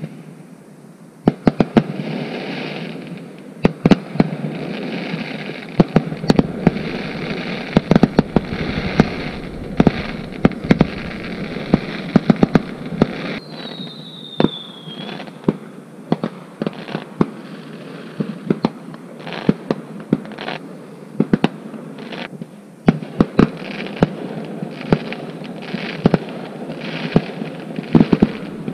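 Fireworks going off: a rapid, irregular string of sharp bangs and crackles over a steady rumble, starting about a second in, with one short falling whistle midway.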